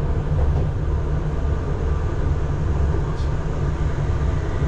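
Utsunomiya Light Line tram running, heard inside the passenger cabin: a steady low rumble with a faint hum above it.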